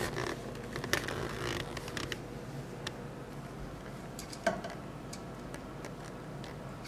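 Light scattered clicks, scratches and creaks of a ferret climbing a carpeted cat tree and pawing at the edge of a wooden wall shelf, with a couple of sharper knocks.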